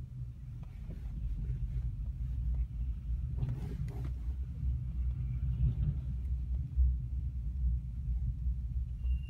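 Steady low rumble of road and running noise heard inside a car's cabin as the car is towed along behind a recovery truck. About three and a half seconds in there is a brief rush of noise.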